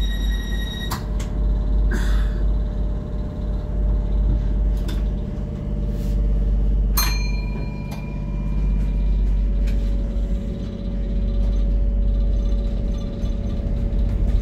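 Metro train heard from inside the carriage: a steady low rumble and hum of the running train, with a high steady tone that stops about a second in. A few sharp clicks and knocks, one about seven seconds in followed by a fading ring.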